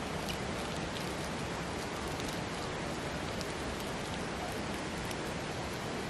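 Steady rush of falling water from a waterfall, an even noise with no change, and a few faint light clicks over it.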